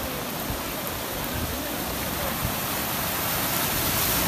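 Steady rain on a flooded street, with a car's tyres pushing through the floodwater and splashing, a little louder near the end as the car passes close.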